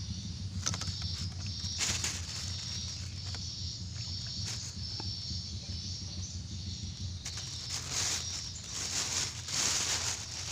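Insects chirping in a high, evenly pulsing trill over a steady low rumble, with short bursts of rustling noise about two seconds in and again near the end.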